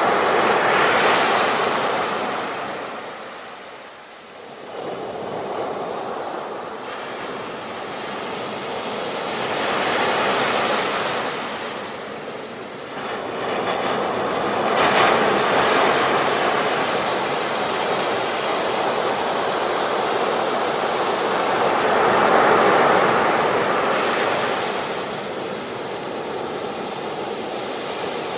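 Ocean waves breaking on a beach: surf rising and falling in slow surges several seconds apart, with a deep lull about four seconds in.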